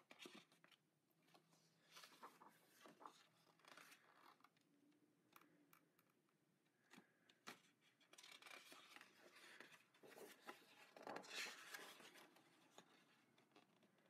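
Faint rustling and soft taps of thick paper pages being handled and turned in a large illustration book, with a longer page-turning rustle in the second half.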